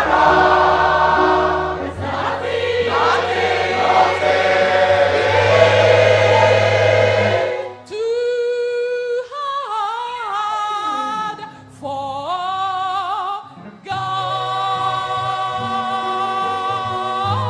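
Gospel choir singing with band accompaniment. About eight seconds in, the sound thins to a lone voice sliding and wavering between notes with no bass under it. The full choir and band come back in about six seconds later.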